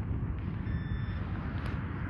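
Steady low rumble of wind on the microphone, with a faint short electronic beep about two-thirds of the way in.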